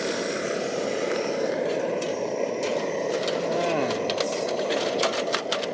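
MSR XGK EX liquid-fuel camping stove burning at full flame with a steady rushing noise. Metal pot clinks are heard from the middle on, more of them near the end, as a pot is set on the burner.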